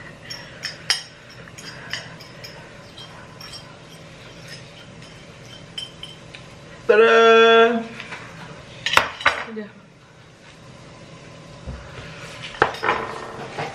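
Chopsticks and utensils tapping and scraping on ceramic plates as noodles are eaten, in scattered short clicks. About seven seconds in, a voice calls out a loud "Tada!".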